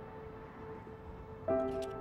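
Soft background music of held chords, with a new, louder chord coming in about a second and a half in.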